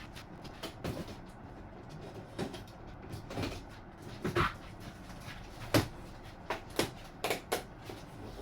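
Cardboard box and packed parts being handled and opened: irregular knocks, taps and short scrapes, the sharpest a little past halfway, with several more in quick succession near the end.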